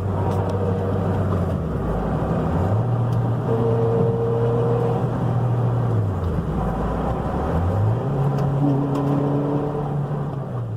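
Toyota Matrix XRS four-cylinder engine pulling in gear, its revs dropping and climbing twice, with a thin steady whine that comes in while it is accelerating.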